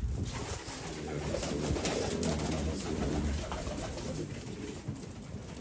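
Domestic pigeons cooing, a low, continuous run of coos.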